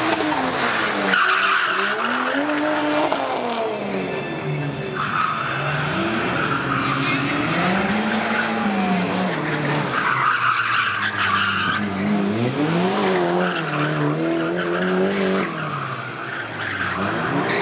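Car engine revving up and down over and over as the car drifts, its tyres squealing and skidding in about four long bursts.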